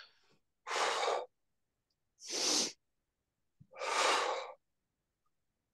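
A woman breathing out hard and audibly three times, about a second and a half apart, in time with repeated arm presses against spring-loaded straps during a Pilates chest-expansion exercise.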